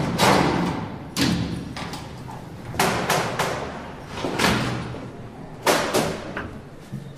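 Heavy doors slamming and thudding one after another, about seven times at uneven intervals, each slam ringing on in a hard, echoing space like a prison corridor.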